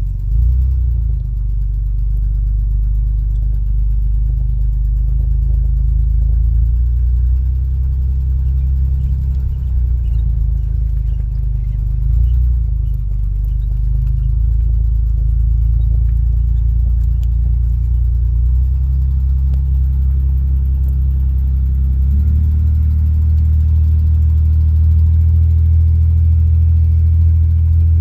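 1984 Chevy Citation X11's engine driving the car away, heard from inside the cabin: a steady low drone. About three quarters of the way through, the engine note rises and gets louder.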